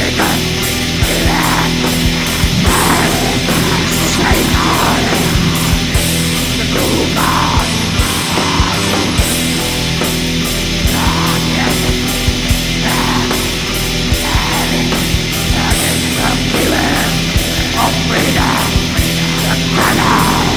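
Black metal music: dense distorted guitars with fast, rapid-fire drumming and cymbals.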